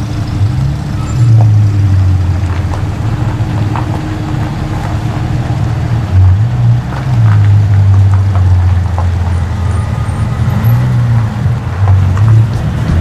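Porsche 911 GT3 sports cars pulling away one after another at low speed, their flat-six engines loud, with the engine pitch stepping up and down as the throttle opens and closes.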